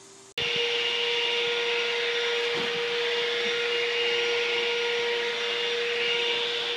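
Robot vacuum cleaner running with a steady motor whine over a loud hiss of suction. It starts abruptly about half a second in.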